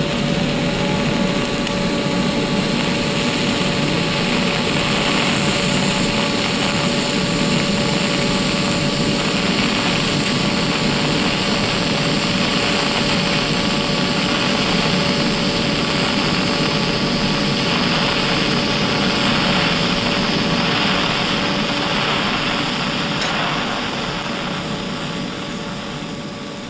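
TIG welding arc burning on copper: a steady hiss with a faint, thin whine held under it. It tapers off gradually over the last few seconds.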